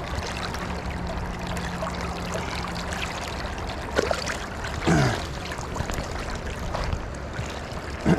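River water running steadily over rocks, with a brief short sound falling in pitch about five seconds in.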